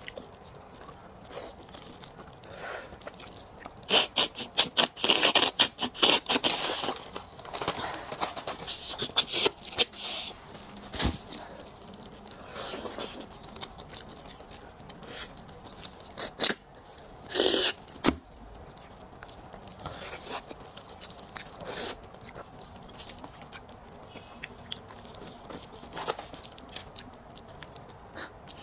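Close-miked wet chewing, gnawing and sucking on a braised marrow bone, in quick runs of sharp clicks. The runs are densest about four to seven seconds in and again around sixteen to eighteen seconds, with quieter gaps between.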